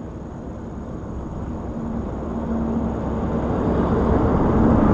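A motor vehicle approaching, its engine rumble and hum growing steadily louder.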